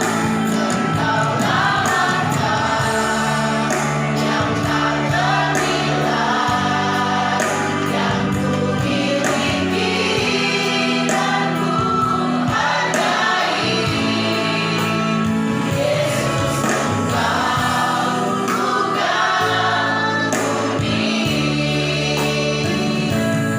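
Church choir singing a Christian gospel song, with held low accompaniment notes beneath the voices.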